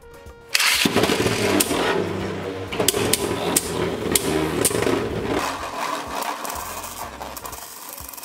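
Two Beyblade Burst spinning tops, Glide Satan and World Spriggan, land in a plastic stadium about half a second in. They whirr and clash against each other with many sharp clicks, and after about five seconds settle into a quieter steady spin.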